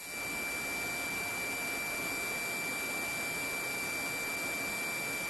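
Steady hiss of the radio audio feed between transmissions, with a thin, steady high-pitched tone over it.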